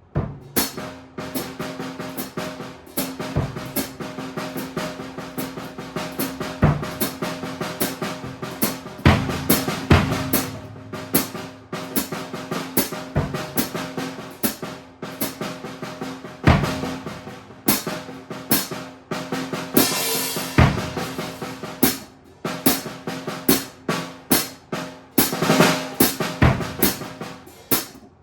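Acoustic drum kit played solo in an improvised groove, starting abruptly out of quiet: irregular snare and bass drum strokes with drum rolls, the drums ringing underneath.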